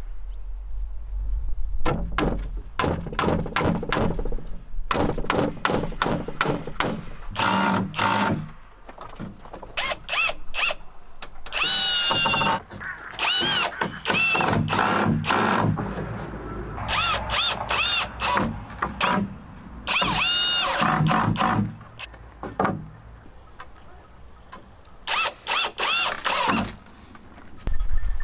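A cordless drill driving screws into a wooden dog kennel's frame, in several short whining bursts that rise in pitch and fall away. Runs of sharp knocks on wood come first and again near the end.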